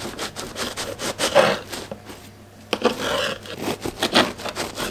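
A knife sawing back and forth through a crusty flatbread topped with sesame and nigella seeds on a wooden board, in quick rasping strokes, with a short pause a little after two seconds in.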